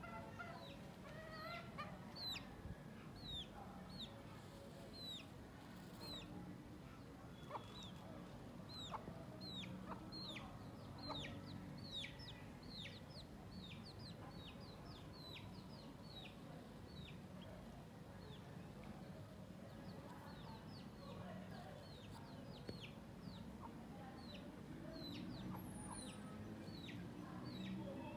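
Chickens clucking and calling softly while foraging, with a long run of short, high, falling peeps, about two a second, over a faint steady background rumble.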